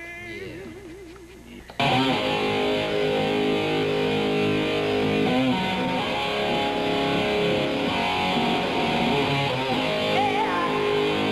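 A man's voice wavering faintly for a moment. About two seconds in, a loud rock band with electric guitars comes in suddenly and plays on steadily.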